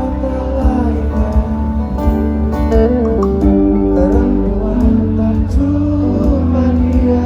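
Live band music: acoustic guitar, bass and drums with a sung melody line.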